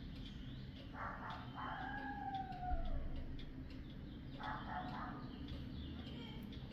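Pendulum wall clock ticking with faint, evenly spaced clicks, while a long animal call that falls in pitch sounds in the background three times, the second the longest.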